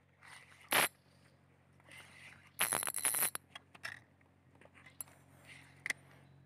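Handling noises: a short scrape, then a quick run of rattling clicks, then a few single clicks, over a steady low hum.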